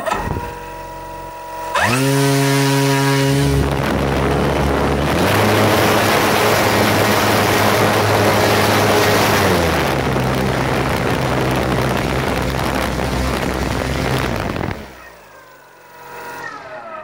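HobbyKing Elite 5010 274kv brushless motor spinning an 18x4 carbon fibre propeller on a thrust stand, on an 8S battery. It whines at low speed, spools up sharply about two seconds in to full throttle, runs there with a loud steady whine and rush of prop wash drawing over 32 amps for over 4 kg of thrust, then throttles back about fifteen seconds in, its whine falling away.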